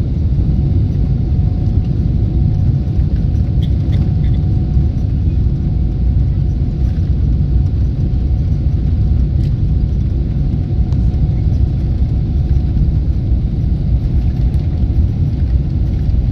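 Boeing 777-300ER cabin noise during the takeoff run: the GE90 engines at takeoff thrust make a steady, deep rumble, with a faint steady tone above it and a few light clicks.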